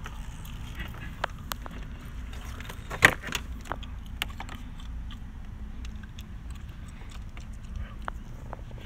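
Scattered light clicks and handling noises as a vinyl sunroof drain hose is pulled out and handled, with one sharper click about three seconds in, over a steady low hum.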